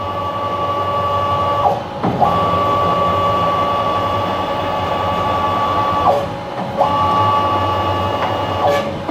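Three-phase stepper motor driving the X-axis ballscrew and table of a CNC-converted PM-727M mill: a steady whine in several tones that stops briefly three times as the table moves and reverses. No clicking is heard, because the Lovejoy jaw coupling's squeaking plastic spider has just been quieted with a spray of alcohol.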